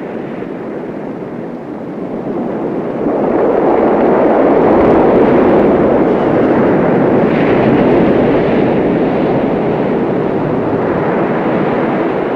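Ocean surf washing onto a beach: a steady rushing noise that swells louder about three seconds in.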